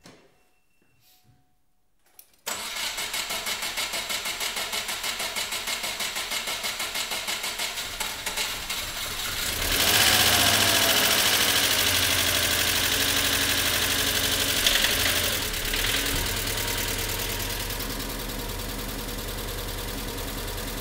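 About two and a half seconds in, a starter motor cranks a 1998 Subaru Legacy GT-B's rebuilt 2.0-litre twin-turbo boxer engine with a pulsing rhythm for about seven seconds. The engine then catches and runs loudly, settling a little toward a steady idle: its first start after the rebuild.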